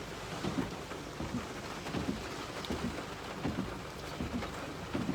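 Steady hiss of rain during a severe thunderstorm, with frequent low thumps.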